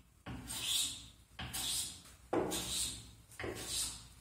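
A hand tool worked in repeated strokes across a small piece of wood to shape it: about four noisy scraping strokes, each under a second long, each starting sharply.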